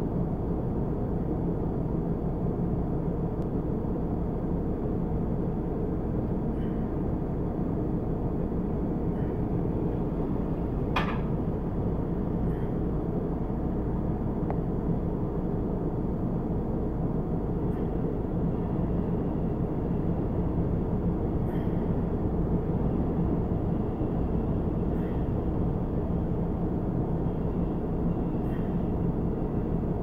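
Steady low rumble of a car in stopped traffic, heard from inside the cabin, with one brief high squeak about eleven seconds in.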